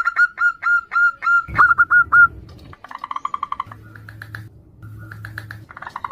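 Zebra doves calling back and forth. First comes a run of short, hooked notes, about four a second. After a short pause there is a quick trilled call about halfway through, and another trill near the end.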